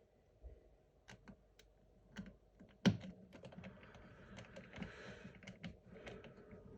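Small scattered clicks of a screwdriver and small parts working inside an open laptop chassis, with one sharper click about three seconds in followed by soft scraping.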